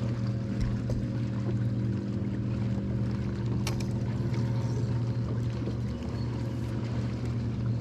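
Boat motor running with a steady, even hum, with a couple of faint clicks midway.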